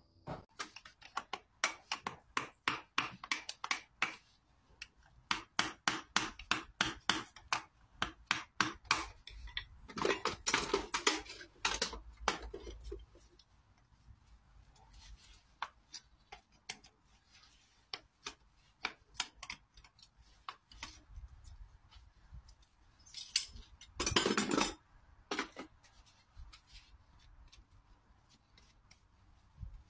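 Farrier's hammer tapping horseshoe nails, in runs of quick sharp metallic taps several a second, then sparser clinks. Two short rough scraping sounds come about ten and twenty-four seconds in.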